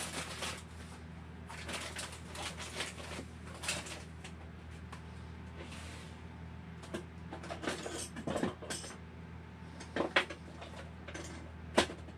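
Scattered clicks, clatters and knocks of tools being rummaged through as a wrench is fetched, with a few sharper knocks in the second half, over a low steady hum.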